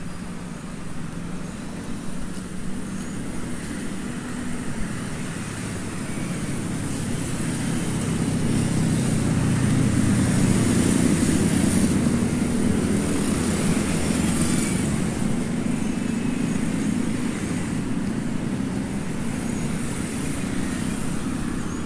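Road traffic: cars and motorbikes passing in a steady rumble. It grows louder from about eight to fourteen seconds in as a bunch of motorbikes goes by.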